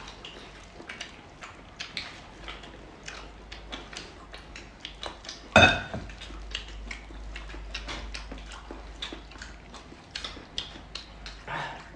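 Eating sounds: many small clicks and smacks of chewing and of utensils handling food, with one loud clink about halfway through.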